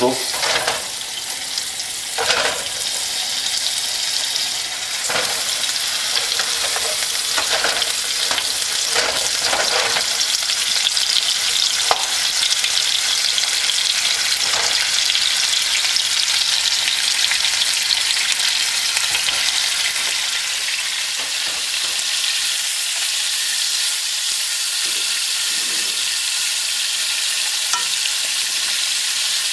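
Beef short ribs searing in very hot olive oil in a frying pan: a steady, loud sizzle and spatter. A few sharp knocks sound in the first fifteen seconds as more pieces are laid into the pan.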